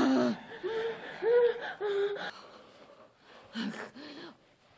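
A woman's short, high-pitched whimpering cries, followed by fainter gasping breaths about three and a half seconds in.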